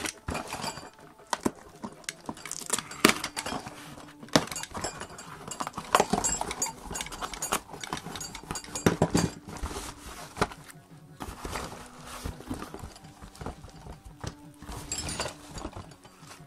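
Cardboard packaging handled by hand: a box flap rustling and small card boxes of linear bearings knocking and clicking against each other and the box as they are lifted out, in irregular bursts.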